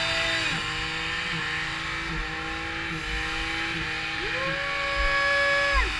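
A car engine revving hard through a burnout, the revs held high with a brief dip about every second, then a long rise near the end that drops off sharply, over the rush of spinning tires.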